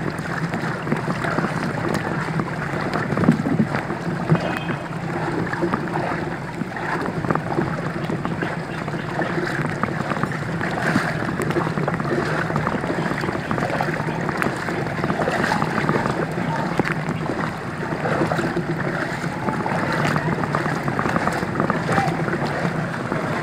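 Floodwater splashing and sloshing in a steady wash, with many small crackling splashes and a low steady hum underneath.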